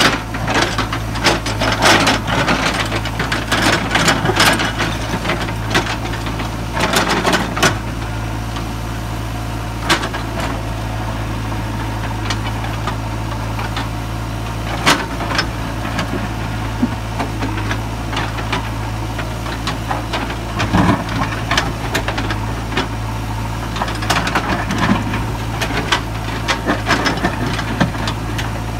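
JCB 3DX backhoe loader's diesel engine running steadily while its backhoe bucket digs into broken rock. Bursts of scraping and clattering come as the bucket teeth bite into the rock and stones fall, thickest in the first several seconds and again near the end.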